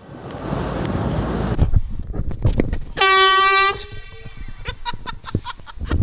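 Handheld compressed-gas air horn sounding one loud, short blast about three seconds in, lasting under a second. Before it there is a rushing noise with scattered knocks, and after it a rapid string of short ticks.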